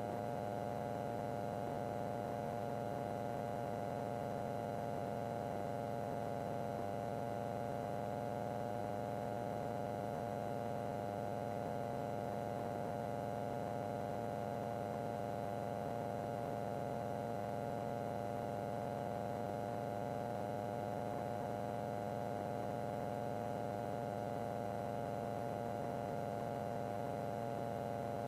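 Steady, unchanging drone of a small experimental aircraft's engine and propeller, heard inside the cockpit as a constant hum with a few fixed tones.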